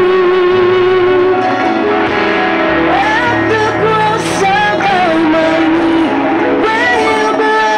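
A live worship band playing a song: women singing into microphones over electric and bass guitars and keyboard.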